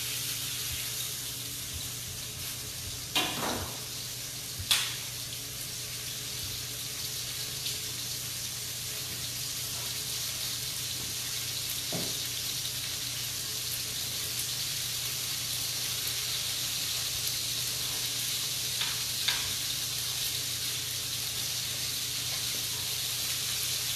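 Chicken breasts searing in oil in a hot pan, sizzling steadily: the sound of a properly preheated pan. A couple of sharp knocks about three and five seconds in, and a few fainter ones later.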